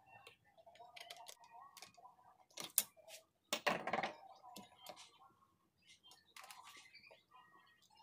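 Light metal clicks and taps of a screwdriver working the shaft coupling between a salvaged washing-machine motor and a pump head, with one louder scrape lasting about half a second midway through.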